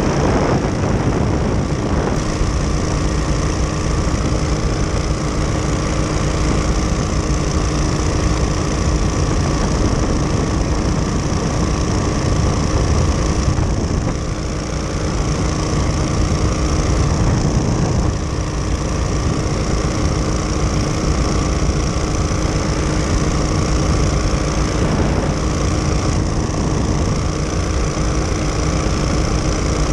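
Powered parachute's engine and pusher propeller running steadily at cruise in flight, a loud, even drone heard from the airframe.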